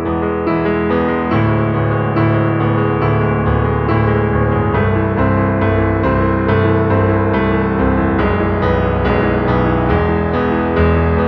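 Background music led by piano or electric keyboard, with a steady rhythm of notes and a bass line.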